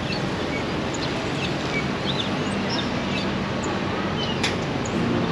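Steady town street noise with many small birds chirping in short high calls, and one sharp click about four and a half seconds in.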